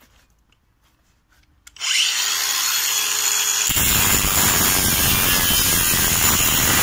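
Makita DGA504Z 18 V brushless cordless 125 mm angle grinder switched on about two seconds in, spinning up to a steady high whine. About a second and a half later its cut-off disc bites into 3 mm steel plate and cuts with a coarse, loud grinding rasp.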